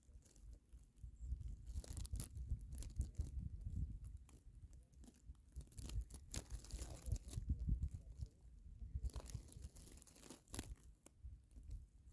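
Faint crackling and rustling over an uneven low rumble, the noise of wind and grass brushing against the microphone.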